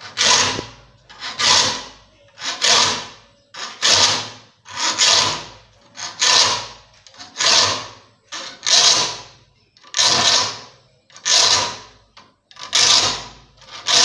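A triangular file rasping across the teeth of a dull handsaw to sharpen it: about a dozen even strokes, one every second or so, each pushed forward only.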